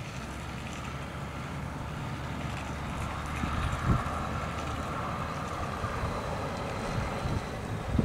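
Steady low rumble of vehicle engines, swelling a little in the middle and easing off again.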